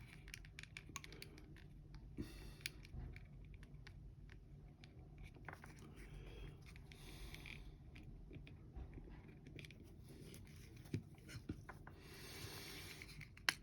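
Faint, scattered small clicks and light taps of hands working on a plastic doll torso and glue tube, over a low steady room hum.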